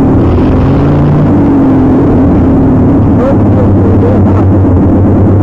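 Off-road mud-bog truck engine running loud and steady.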